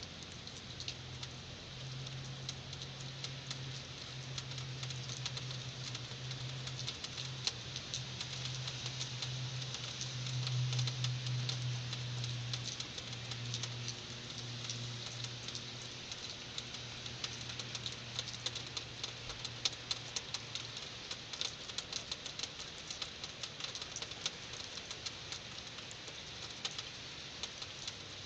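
Heavy rain pattering steadily, with many sharp drop ticks close by. A low rumble builds over the first ten seconds or so, peaks, and fades away by about twenty seconds in.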